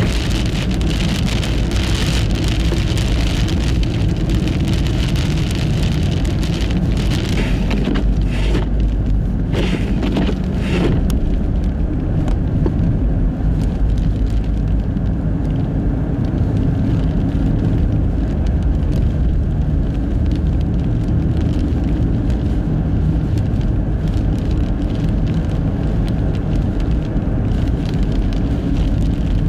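Nissan Fuga Hybrid driving on a snow-covered road in a blizzard on studless tyres: a steady low rumble of tyre and wind noise. Dense, fine crackling patter fills roughly the first ten seconds, then thins out.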